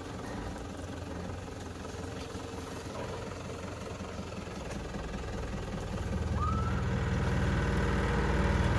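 A 4x4 SUV's engine running at low revs on an off-road trail, growing louder about six seconds in.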